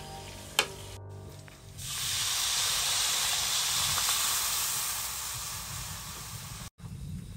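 A single sharp clink of a metal spatula against a steel wok, then water poured into the hot oil of the wok sets off a loud, steady sizzling hiss that slowly dies down and cuts off near the end.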